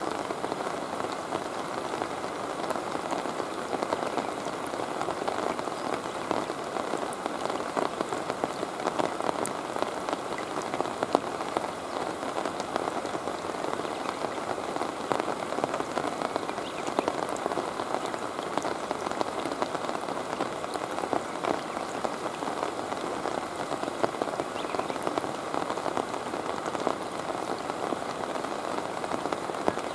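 Steady rain falling, an even hiss with many fine drop ticks throughout.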